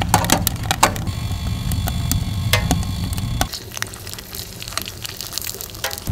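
Crackling and sizzling on a camp wood stove, over a low rumble that cuts off suddenly about three and a half seconds in, leaving quieter crackling and hiss.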